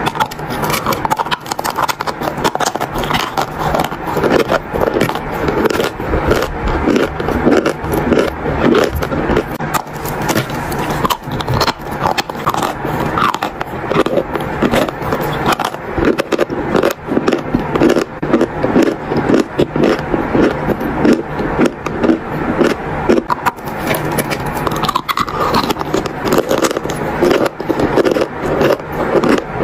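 Close-miked biting and chewing of dry chalk: a continuous stream of dry crunches and gritty crackling as the chunks break up in the mouth.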